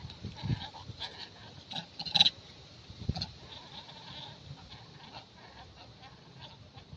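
Short, high animal cries among scattered knocks and rustles; the loudest cry comes a little after two seconds in, followed by a dull knock.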